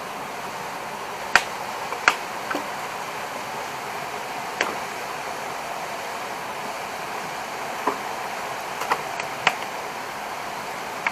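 Steady rush of running stream water, with about eight sharp crackling pops from the charcoal and dry-grass fire scattered unevenly through it.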